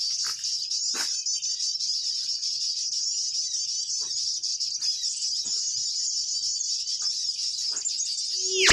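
Steady high-pitched chorus of insects shrilling, with a few faint clicks. Near the end a call sweeps sharply downward.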